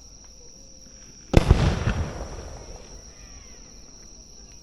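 Aerial fireworks: a shell bursts with one sharp boom about a second in, its rumble and crackle fading over about a second, and another boom comes right at the end.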